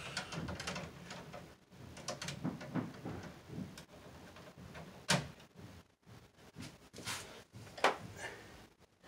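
Stiff electrical wire being handled and bent inside a metal breaker panel: rustling and scraping, with two sharp metallic clicks about five and eight seconds in.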